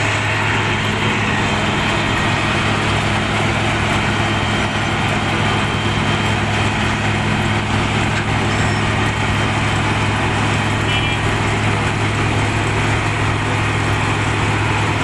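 Heavy diesel road-works machinery running steadily at a constant engine speed: a low, even engine hum under a dense grinding noise.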